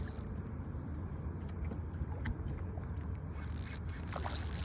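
Fishing reel clicking and whirring while a hooked tarpon is being played, over a steady low rumble; a high hiss joins near the end.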